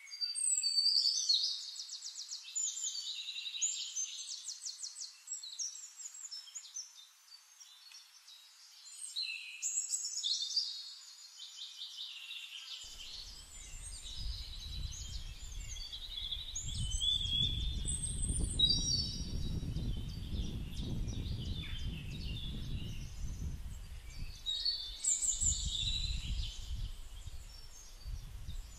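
Several songbirds singing in overlapping phrases of quick chirps and rapid trills. From about halfway, a low background rumble joins them.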